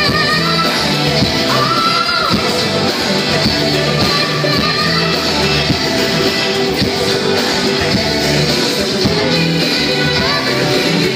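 A song with a steady beat and a singing voice over it, played loud.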